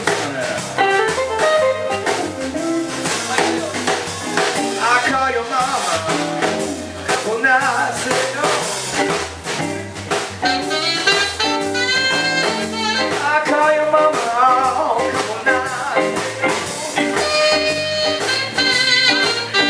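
Live blues band playing: a saxophone solo with bending, wavering notes over hollow-body electric guitar and electric bass.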